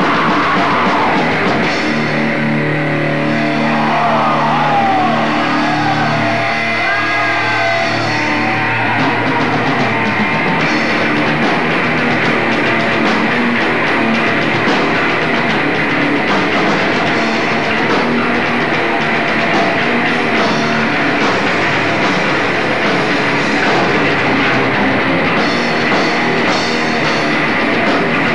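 A death metal band playing live: distorted electric guitars, bass and a drum kit, loud and dense throughout.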